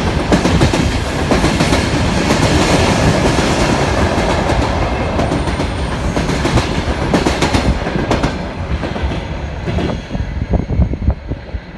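Freight train rolling past, its wagon wheels clattering over rail joints in a dense run of clicks. The sound eases off near the end.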